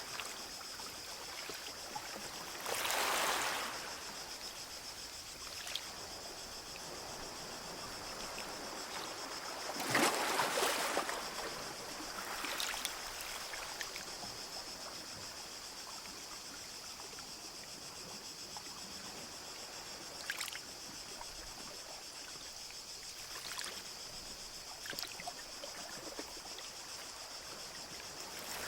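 Small sea waves lapping and washing onto a beach, each wash a short swell of hiss, the biggest about three seconds and ten seconds in, over a steady high hiss.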